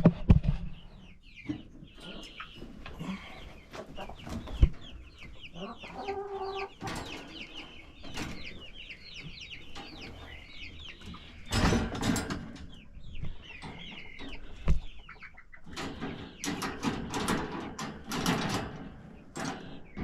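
A flock of chickens clucking, many short calls overlapping. There are louder noisy bursts about halfway through and again near the end.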